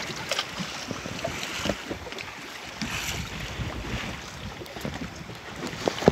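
Wind buffeting the microphone over sea water washing against a small boat's hull, with scattered small knocks and one sharp click near the end.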